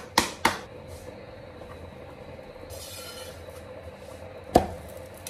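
Hands slapping roti dough back and forth between the palms, a few quick slaps at the start, then one louder slap near the end as the flattened roti is laid onto the iron tawa. A steady low hum runs underneath.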